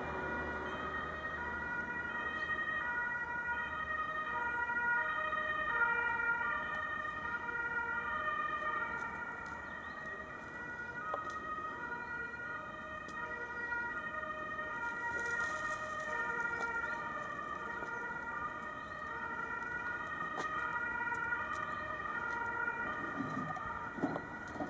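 Two-tone emergency-vehicle siren, alternating steadily between a high and a low note.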